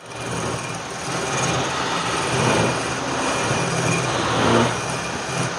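Wood lathe running with a steady motor hum under a rough hiss of a tool working the wood. It gets loudest about four and a half seconds in, with a short falling sweep in pitch.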